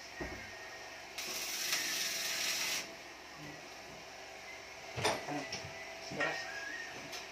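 Stick arc welder crackling and hissing for about a second and a half as a seam is laid on a steel exhaust muffler, followed by two sharp metallic knocks about a second apart.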